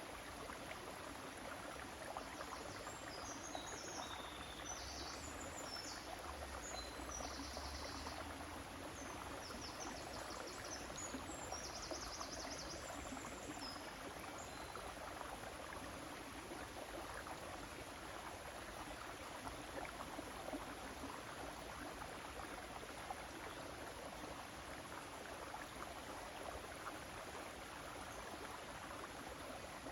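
River water flowing steadily: an even, unbroken rush of moving water.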